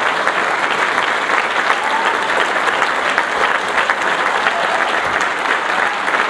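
Audience applauding steadily, with dense clapping throughout.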